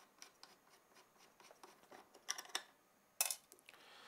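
T8 Torx screwdriver backing out small screws from a steel cover plate: faint scrapes and ticks, with two short runs of sharper clicks about two and three seconds in.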